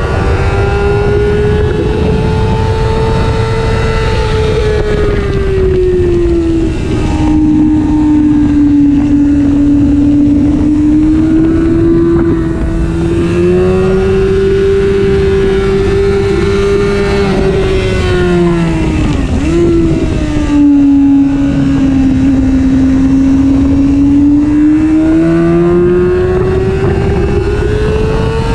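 Honda CBR600F's inline-four engine running hard at track speed, heard from on the bike over a steady rush of wind. The engine note rises and falls slowly with the throttle, drops sharply for a moment about two-thirds through, and climbs again near the end as the bike accelerates.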